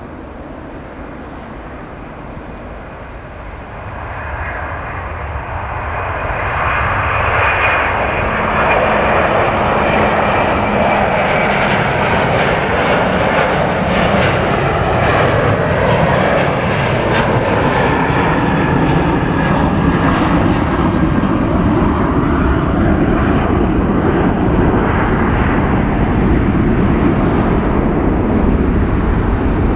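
Jet airliner's engines: a loud, steady jet roar that swells over the first several seconds and then holds.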